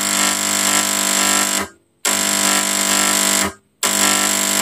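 Stage fog machine's pump buzzing loudly as its remote button is pressed, a steady electric hum that cuts out twice for a moment and starts again; the repaired machine is running.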